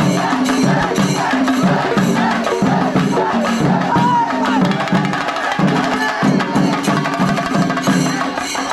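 Shinkari melam: chenda drums beaten in a fast, driving rhythm that plays on without a break.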